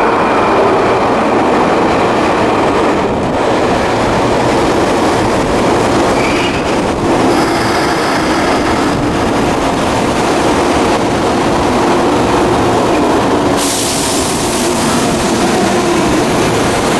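Toei Shinjuku Line 10-300 series electric train pulling into an underground station and braking to a stop: a steady loud rumble of wheels on rails, with brief high wheel squeals in the middle and a burst of hiss about fourteen seconds in.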